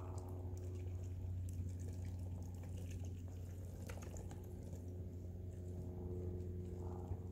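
Wet eggs and fluid from a rainbow trout dripping and slopping into a plastic tub, with a few faint soft ticks, over a steady low hum.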